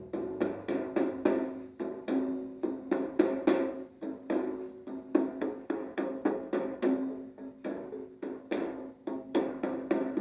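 Music with percussion played from a television: quick, sharp strikes several times a second over held low notes.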